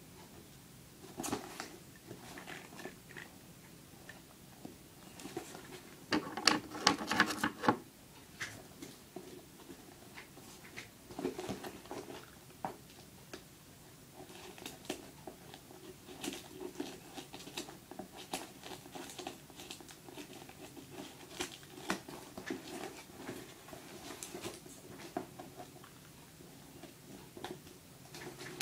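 A cardboard parcel being handled and cut open with scissors: scattered crackles, scrapes and snips, with a louder stretch of dense crackling about six seconds in.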